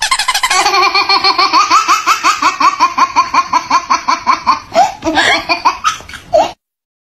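A baby's laughter: a long run of quick giggling pulses, about five or six a second, that tails off and stops abruptly about six and a half seconds in.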